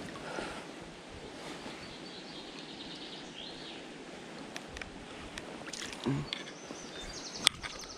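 River water running steadily, with a few sharp clicks in the second half, the loudest near the end.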